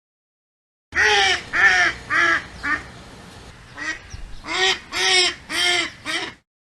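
A duck quacking: a run of about four quacks, a short pause, then about five more, starting about a second in.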